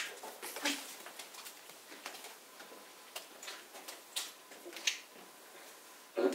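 Scattered light ticks and taps at irregular spacing, a few louder than the rest: a handler and a leashed dog moving on the floor.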